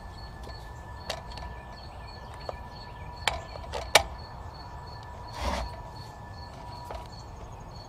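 A few sharp clicks and knocks, the loudest about four seconds in, and a brief rustle or scrape about five and a half seconds in, from hands handling parts of a gas-powered concrete saw. A steady, evenly pulsed insect chirping runs underneath.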